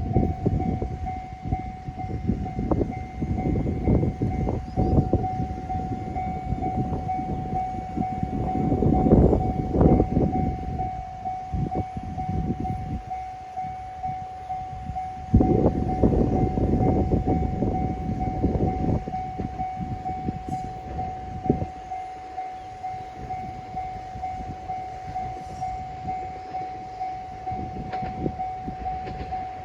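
A level crossing warning bell ringing on a steady pitch, while a two-car KiHa 110 diesel railcar runs over the crossing. The train's rumble is loudest about nine and sixteen seconds in and fades after about twenty seconds, leaving the bell.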